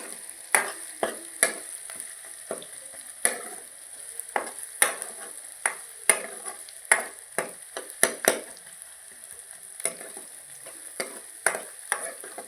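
Onion and ginger frying in hot ghee in a pan, with a steady high sizzle. A utensil scrapes and knocks against the pan as the onions are stirred, about once or twice a second. The onions have browned.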